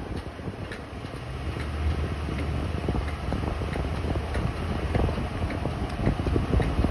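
2012 Toyota Tundra running, with repeated short knocks over a steady low rumble. This is the knocking the owner cannot explain.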